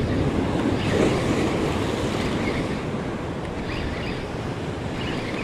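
Ocean surf washing and breaking against the rocks, a steady rushing noise, with wind buffeting the microphone.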